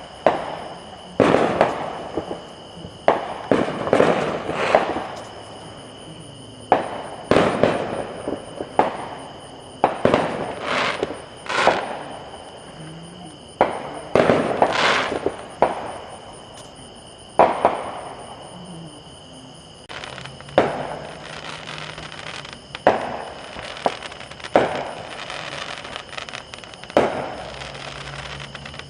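Fireworks going off: about twenty sharp bangs at irregular intervals, each trailing away over a second or so.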